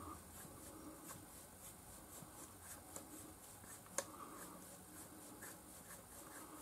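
Near silence: quiet workshop room tone with faint regular ticking, and one sharp click about four seconds in.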